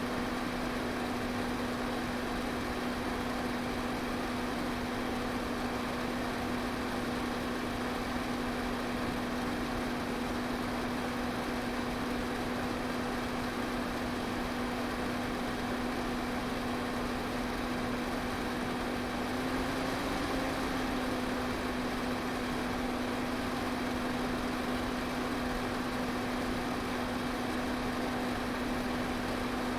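Electric fan running steadily: an even rush of air over a constant motor hum.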